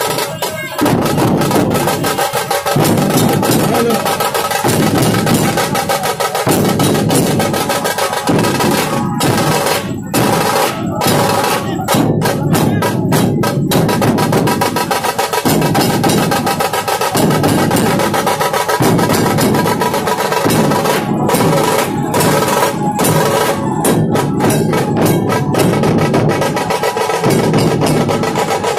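An ensemble of drums plays a loud, fast, continuous rhythm, full of rapid snare-like rolls.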